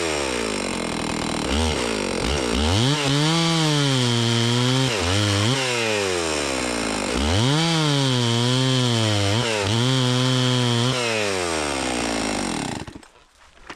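Two-stroke chainsaw ripping lengthwise through a log to cut rough boards, its engine pitch sagging and recovering several times under load. Near the end the throttle is released and the engine sound drops away.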